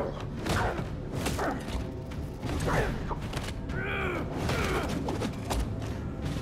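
Fight-scene sound effects of an armored fighter in combat: sharp hits mixed with mechanical whines that glide up and down, loudest about four seconds in, over film score.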